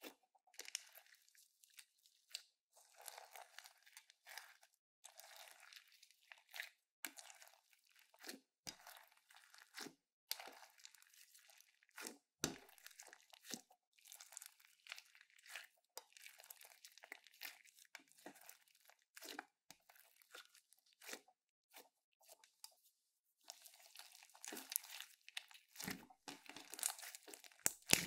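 Slime being squeezed, stretched and pressed by hand close to the microphone: soft, irregular crackling, clicking and tearing sounds with short pauses, getting busier near the end.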